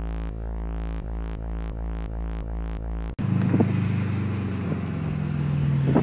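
Music with a low held drone under a repeating note pattern, cutting off suddenly about three seconds in. It gives way to a 2013 Subaru WRX's tuned turbocharged flat-four running, heard from inside the cabin, breathing through a catless downpipe and race cat-back exhaust.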